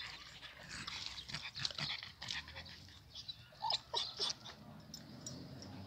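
Dogs lapping water from a plastic bucket, a run of quick irregular wet laps, with a couple of short dog noises about four seconds in.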